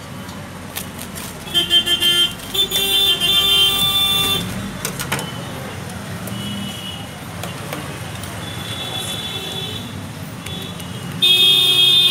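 Street traffic with vehicle horns honking: a string of short toots about a second and a half in, a long honk soon after, and a louder long honk near the end. A few sharp clicks come in between, over a steady traffic hum.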